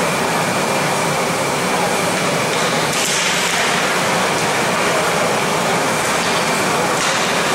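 Ice rink ambience during a youth hockey game: a steady wash of noise from skates on the ice and the arena, with a brief brighter scraping hiss about three seconds in.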